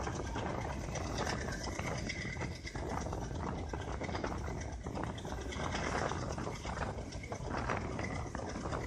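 Passenger train running at speed, heard from an open coach doorway: a steady rush of noise with wheels and coach fittings clattering and rattling irregularly throughout.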